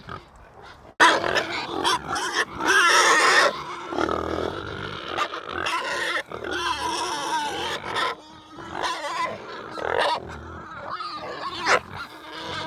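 An animal calling repeatedly, starting abruptly about a second in.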